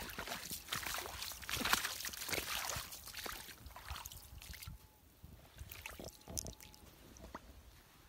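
Shallow seawater sloshing and splashing around feet wading over sand, in irregular bursts that are busiest in the first half and give way to softer trickling after about four seconds.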